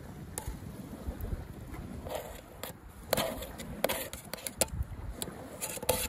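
A spoon scraping and clinking against a metal plate as diced tomatoes are pushed off it into a cooking pot: a string of short sharp scrapes and clicks, busiest near the end.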